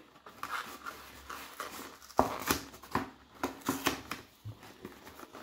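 Thin cardboard food box being pulled open and handled by hand: rustling and crackling of the card, with a string of sharp clicks and taps from about two seconds in.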